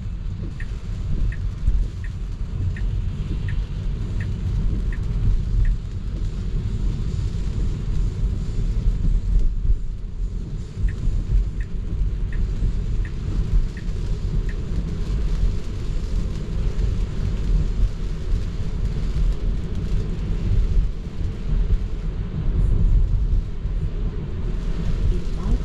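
Steady low road and tyre rumble inside a Tesla's cabin on a wet road. Over it, the turn-signal indicator ticks evenly, about one and a half ticks a second, in two runs: one at the start and a shorter one about halfway through.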